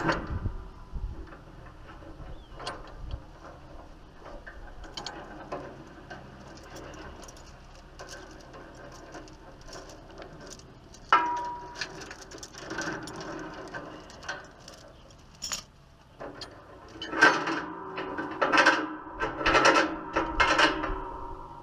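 Metal hand tools clicking and clanking on a buggy during engine removal, with the ratcheting clicks of a wrench. A sharp metallic clank comes about halfway through, and a dense run of louder clatter comes near the end.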